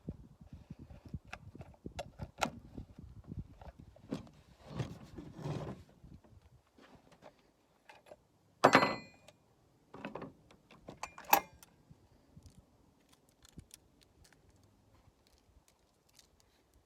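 Metal parts of a Stihl MS 261 chainsaw being handled as the bar and chain come off: small clicks and rattles, then a loud metallic clank with a ringing tail about nine seconds in and another sharp ringing clank a couple of seconds later.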